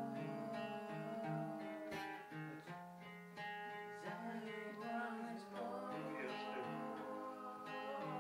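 Acoustic guitar playing chords, with a voice singing along.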